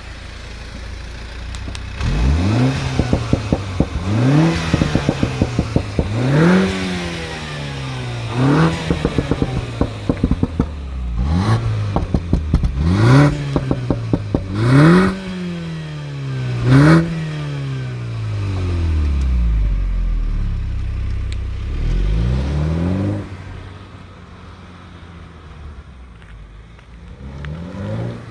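2015 Mini Cooper S F56's stock 2.0-litre turbocharged four-cylinder engine and exhaust revved about eight times in quick blips. As the revs fall after each blip, the exhaust crackles and pops, with the loudest bangs in the middle. The engine then drops back to a quiet idle.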